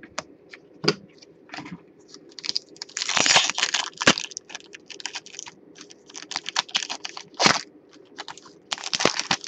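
A foil trading-card pack being torn open, its wrapper crinkling, with cards clicking and snapping as they are handled. The loudest crinkling comes about three seconds in.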